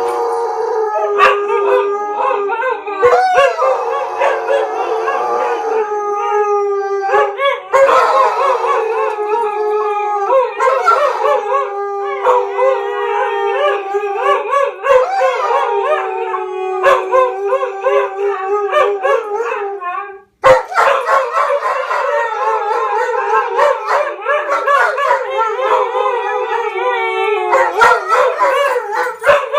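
A German Shepherd and two Siberian Huskies howling together: several long, wavering howls overlapping at different pitches. The howling breaks off for a moment about twenty seconds in, then carries on.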